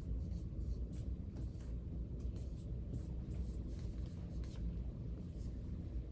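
Felt-tip marker writing on a whiteboard: a quick run of short scratchy strokes as an equation is written out, over a steady low hum of the room.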